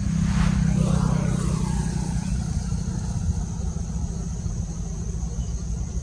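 A motor vehicle passing close by: a steady low engine rumble, with a rush of noise that swells about half a second in and fades away over the next two seconds. A thin, steady high-pitched whine runs underneath.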